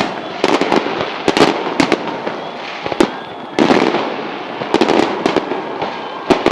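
Fireworks salvo: shells bursting in sharp, irregular bangs with crackling between them, in clusters about every second. A denser burst of crackle sets in about three and a half seconds in.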